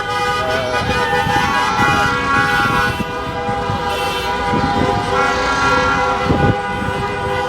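Several car horns honking at once in long, steady, celebratory blasts, over loud street and traffic noise.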